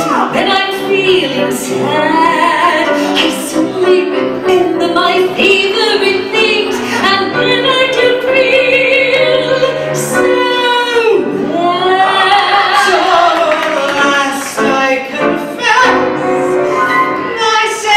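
A woman singing a show song in a full, trained voice with wide vibrato and long held notes, over musical accompaniment.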